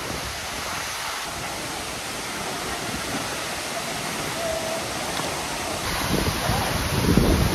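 Steady rushing of the Aagaya Gangai waterfall, a fall of about 300 feet. Near the end, wind starts buffeting the microphone with a low rumble.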